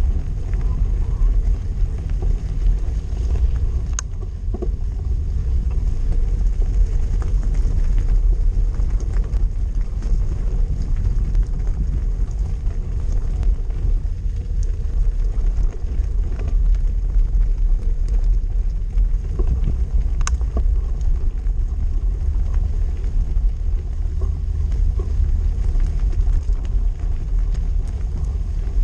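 Riding noise from a loaded bicycle on a gravel towpath: wind buffeting the microphone and tyres rolling over gravel make a steady low rumble. Sharp knocks stand out about four seconds in and again about twenty seconds in.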